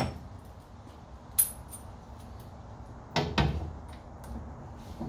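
Metal tools and strut parts being handled: a sharp ringing clink about a second and a half in, then a louder clattering knock a little past three seconds, with a few light ticks between.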